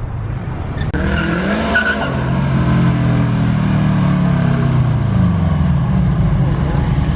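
Subaru WRX's turbocharged flat-four revving hard under a drift, with tyres squealing. The engine pitch climbs, then falls away over several seconds.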